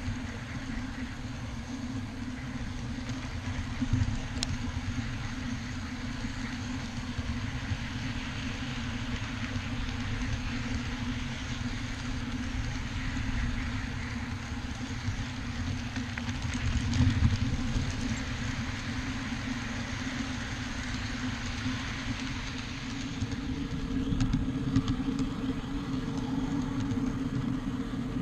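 Ride-on backyard railroad train running along the track: a steady low motor hum over the rumble of wheels on rail, with a few louder bumps.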